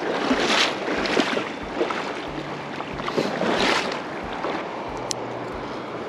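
Shallow river water rushing and splashing over a rocky bed, rising and falling in surges about every second, with wind buffeting the microphone.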